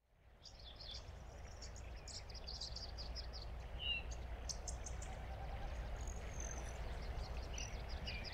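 Outdoor ambience fading in: birds chirping in quick high series, with a short falling whistle about four seconds in, over a steady low rumble.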